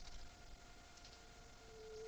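Near silence: a faint, even hiss with a faint steady whine and a few faint ticks.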